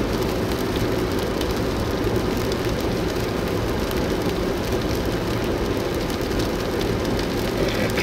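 Steady road and engine noise of a car driving in heavy rain, heard from inside the cabin, with rain ticking on the windshield. A windshield wiper swishes across the glass near the end.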